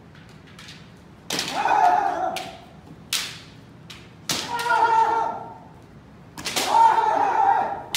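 Kendo fencers shouting kiai: three long, steady yells of about a second each, with sharp cracks of bamboo shinai striking, two of them close together in the middle.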